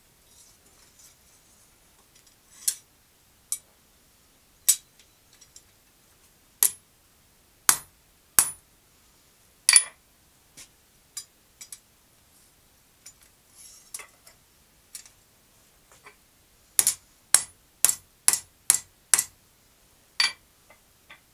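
Blacksmith's hand hammer striking a small red-hot steel heart on an anvil. Sharp single blows come a second or two apart, with lighter taps between, then a quick run of about six blows near the end.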